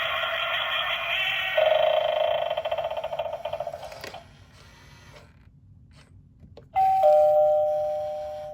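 Gemmy animated eyeball doorbell playing through its small speaker: a warbling electronic tune that stops about halfway through. After a short quiet comes a two-note electronic ding-dong chime, the second note lower, which rings on and fades.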